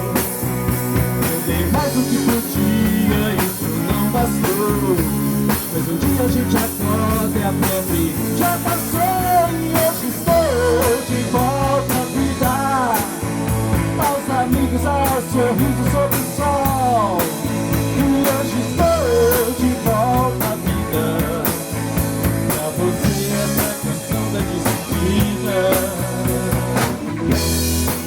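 Rock band playing an instrumental passage of the song with drums and bass; through the middle a lead melody of sliding, bending notes plays over them.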